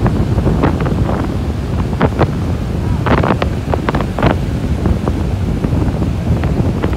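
Strong wind buffeting the microphone over waves breaking on a beach, as a steady rumble with a few short, sharp bursts of noise scattered through it.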